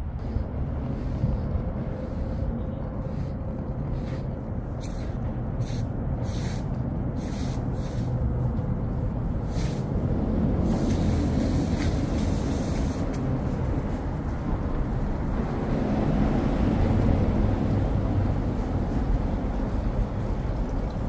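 Outdoor downtown city ambience: a steady, fluctuating low rumble of traffic, with brief hissing bursts in the middle of the stretch.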